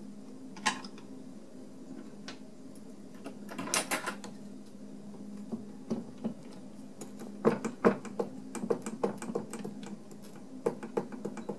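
Scattered light metallic clicks and taps of hand tools working a small screw loose from a Seeburg jukebox mechanism, with a busier run of clicks a little past halfway, over a faint steady hum.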